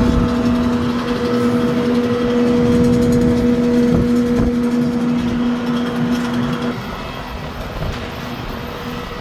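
A steady machine drone: a constant hum over a loud rumbling noise, with the hum cutting off about seven seconds in and leaving a quieter rumble.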